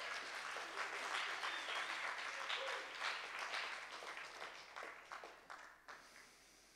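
Audience applauding, many hands clapping together; the clapping thins out and dies away about six seconds in.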